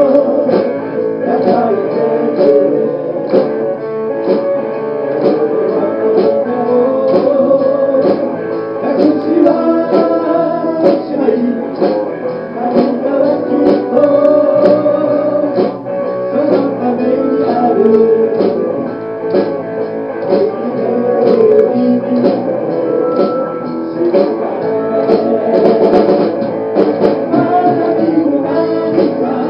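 Live band playing a song on guitars, keyboard and drums to a steady beat, with voices singing.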